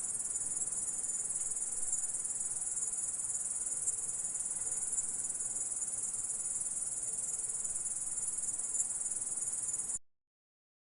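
Grasshopper stridulating: a continuous, high-pitched buzzing trill that holds steady, then cuts off suddenly near the end.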